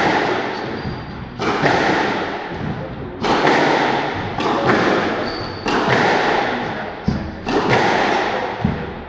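Squash ball struck with rackets and slammed into the court walls during the players' warm-up hitting: a sharp bang about every one and a half to two seconds, each ringing on in the court's echo.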